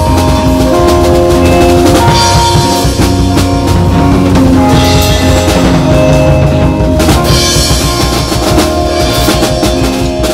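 Acoustic drum kit played along to a recorded song: kick, snare and cymbal strokes over the track's sustained notes and bass line, with cymbal wash swelling in several stretches of a second or two.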